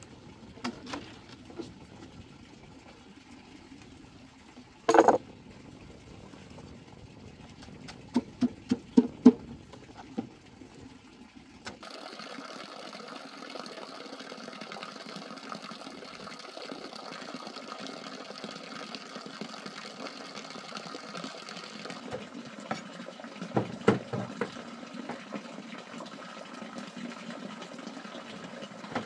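Sharp knocks of a knife working a banana stem on a bamboo raft: one strike about five seconds in and a quick run of strikes around eight to nine seconds. Then a steady rush and splash of water as the chopped banana goes into the river, with a few knocks near the end.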